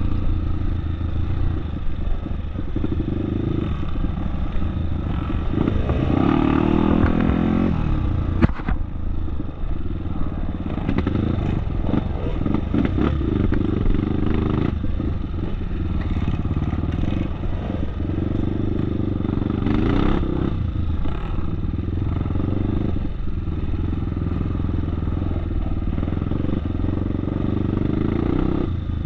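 Off-road motorcycle engine running under changing throttle as the bike rides a dirt trail, with a rev rise about six to seven seconds in. A sharp knock comes just after, and there is rattling from rough ground throughout.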